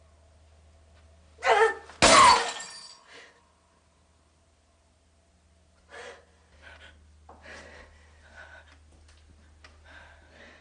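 A framed photograph's glass smashing on the floor with a loud crash about two seconds in, just after a short loud burst of sound. Faint, uneven sobs and sniffs follow in the second half.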